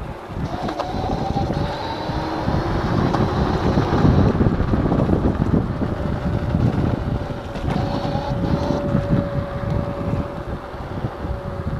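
Wolf X Pro electric scooter riding at speed: heavy wind rush on a helmet-mounted microphone, with the motor's thin electric whine over it. The whine rises in pitch a few times as the scooter speeds up, then holds a steady tone in the second half.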